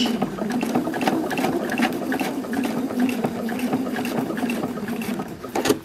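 Electric sewing machine stitching a seam, a steady hum with rapid needle ticks, stopping just before the end.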